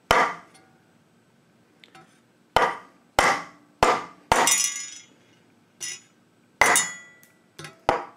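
Hammer blows on a wooden block laid over a steel winch mounting plate clamped in a vise, knocking the bent metal back into shape. About nine irregular strikes, a few with a brief metallic ring.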